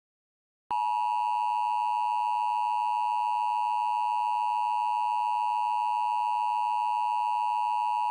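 Emergency Alert System two-tone attention signal (853 and 960 Hz sine tones sounded together), starting just under a second in and holding at a steady loud pitch. It is the attention signal that announces the start of a new emergency alert broadcast.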